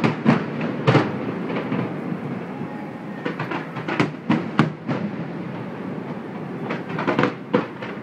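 Fireworks going off: clusters of sharp bangs and crackles, near the start, in the middle and again near the end, over a steady background noise.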